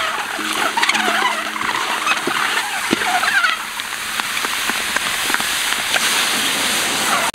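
Boiled eggs frying in a large wok: a steady sizzle with clicks of eggs knocking and a wooden spatula scraping the pan, and a few short squeaks.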